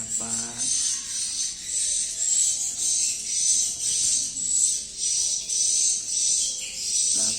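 Swiftlets twittering: a dense, high-pitched chirping that swells and fades in a steady pulse a little more than once a second, with a brief lower-pitched tone at the start and again at the end.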